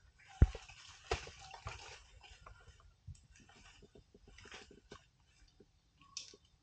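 Elephant feeding on vegetation: rustling and crunching of leaves and branches, with a sharp thump about half a second in and another about a second in, then a run of small cracks and snaps.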